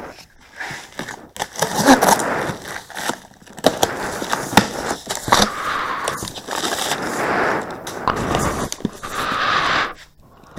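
Cardboard fireworks boxes and their plastic-wrapped packages being handled and rummaged through: stretches of rustling and scraping with many sharp knocks and clicks.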